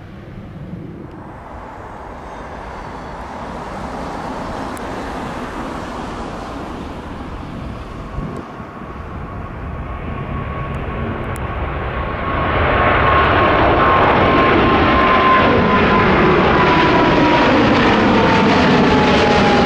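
Boeing 777-300ER's twin GE90-115B jet engines on departure thrust, a broad rumble that builds and jumps louder about halfway through. A high engine whine slowly falls in pitch as the jet passes.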